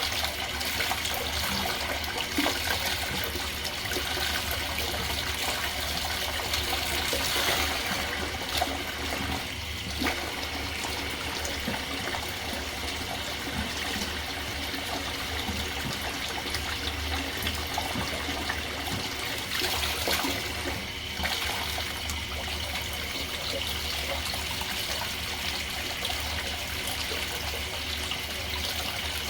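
Tap water running steadily into a sink while a dirty vacuum filter pad is rinsed under it, the stream splashing unevenly as it hits the filter.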